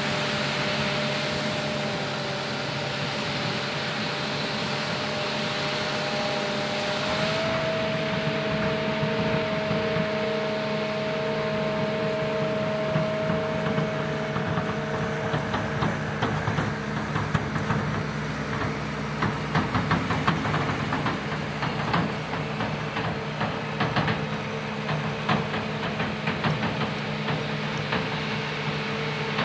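New Holland FR9060 self-propelled forage harvester with a Kemper 460 maize header chopping standing corn: a steady machine drone with several whining tones, the strongest stepping up slightly in pitch about seven seconds in. From about halfway on, a quick scattered crackle of short clicks runs over the drone.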